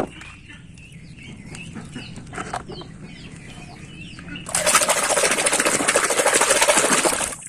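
A hand splashing and swishing a toy truck rapidly through muddy water to rinse the mud off. The dense churning splash starts a little past halfway and lasts about three seconds.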